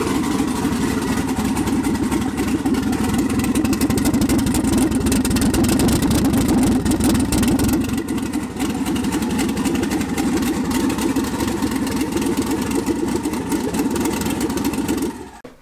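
Twin-turbo Fox-body Mustang engine running steadily with the choppy pulsing of a big, hogged-out cam. It stops abruptly near the end.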